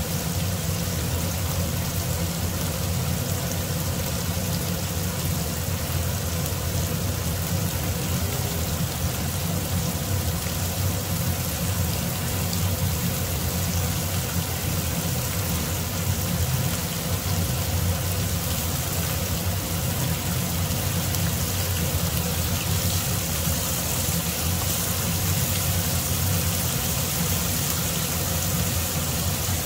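Marinated beef slices sizzling and crackling in butter and marinade in a nonstick frying pan, over a steady low hum.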